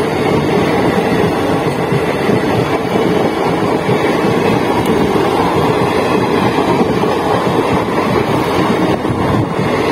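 Indian Railways passenger coaches rushing past close by at speed: a steady, loud rumble of wheels on the rails with rushing air.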